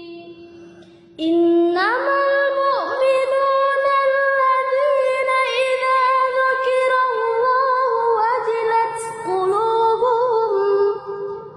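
Quran recitation chanted in a high voice, with long held notes that glide and ornament in pitch, resuming after a short breath pause about a second in.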